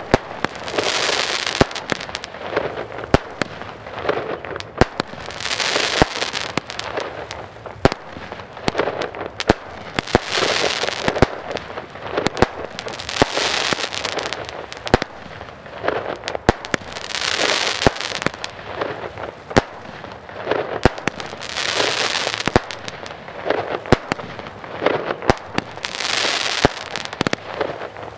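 Bonfireworks 'Weeping Willows' firework cake firing shot after shot: many sharp launch and burst bangs at irregular intervals, with swells of hiss every few seconds as the stars burn and fall.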